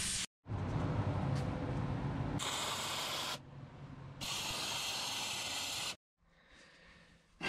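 A plasma cutter hissing as it cuts steel plate, with a low hum under the hiss, then after a cut a wire-feed welder's steady sizzle for about two seconds, stopping about six seconds in.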